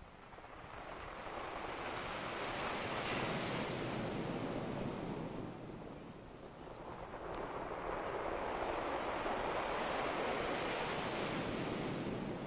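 Surf washing in: two long swells of rushing noise, each building over a couple of seconds and then fading.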